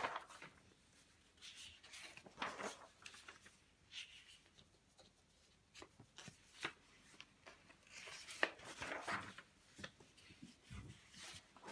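Large sheets of comic-art paper being handled and turned over: faint, scattered swishes and rustles of paper sliding over paper, with a few light taps.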